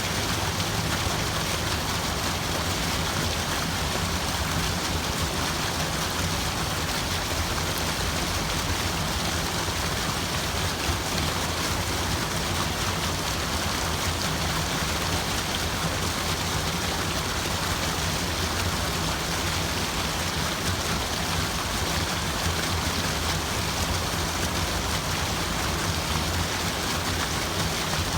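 Water running and splashing steadily, an even rushing hiss with no pauses or changes.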